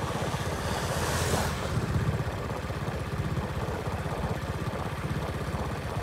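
Steady low rumble of a vehicle engine with wind buffeting the microphone as the vehicle moves. A brief rush of hiss comes about a second in.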